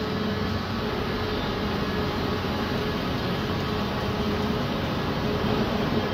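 Ice resurfacer driving slowly across the rink, a steady, even mechanical hum.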